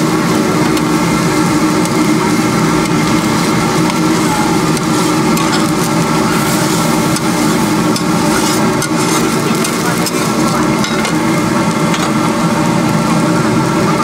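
Pork fried rice sizzling in a large wok as a metal spatula stirs and tosses it, with occasional clinks of metal on metal over a steady hum.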